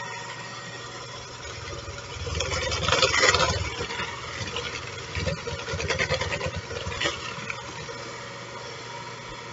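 KitchenAid electric hand mixer running steadily, its beaters churning wet cookie dough in a bowl. The sound grows louder and rougher twice, around three seconds in and again around six seconds, as the beaters scrape against the bowl.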